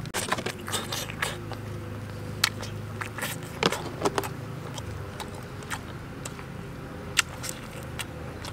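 A person eating roasted chicken with the fingers: scattered wet clicks and smacks of biting, chewing and tearing meat off the bone, over a low steady hum that weakens about five seconds in.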